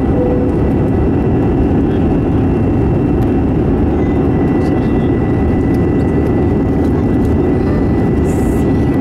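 Airbus A320-200 jet engines and airflow heard inside the passenger cabin: a steady low noise with two faint, steady high whining tones. It is the constant cabin sound of the airliner in flight after takeoff.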